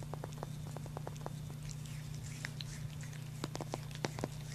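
Deer licking and grooming a cat's head and fur: irregular short wet clicks and smacks of tongue and lips, a few a second, getting louder near the end.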